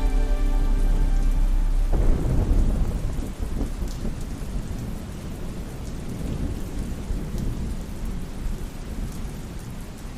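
Thunder rumbling and slowly dying away under steady rain. A sustained music chord plays over it for about the first two seconds, then cuts off.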